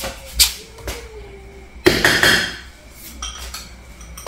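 Three sharp clinks of chopsticks against a small bowl, then a sudden burst of sizzling from the frying pan about two seconds in that fades over about a second.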